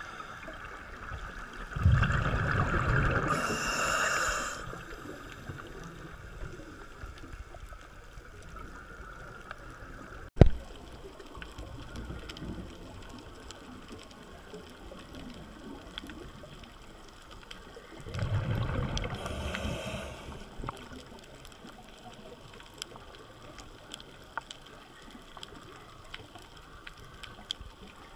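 Scuba regulator exhaust bubbles rushing past the underwater camera twice, about sixteen seconds apart, each lasting two to three seconds. A single sharp knock about ten seconds in, and a faint steady crackle and hiss between the breaths.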